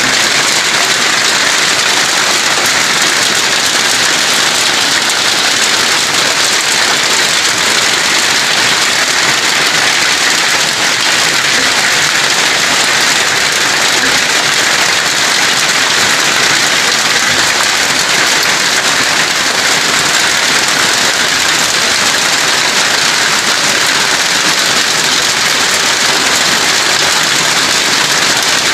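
Heavy rain pouring down on forest foliage, a dense, unbroken hiss with no let-up.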